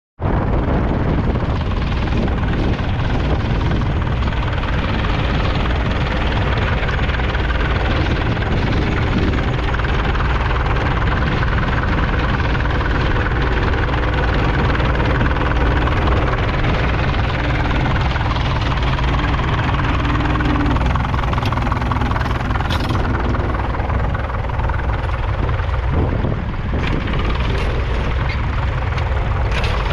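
1943 Fordson Model N tractor's four-cylinder diesel engine running steadily.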